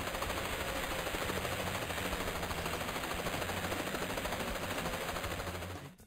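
Cartoon helicopter rotor sound effect: a steady, fast chopping clatter that fades out near the end.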